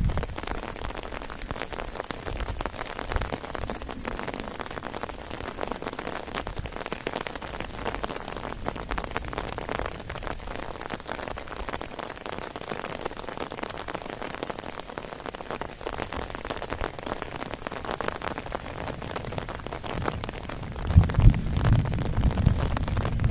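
Heavy rain falling steadily, a dense hiss of many small drop hits. Near the end a loud low rumble comes in and stays.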